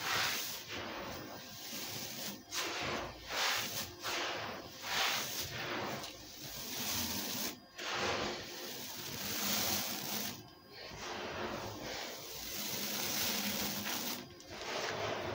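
Crushed soft white concrete grit scraped and swept across a cement floor by hand, a gritty swishing and crunching that repeats in uneven strokes about once a second, with a few brief pauses.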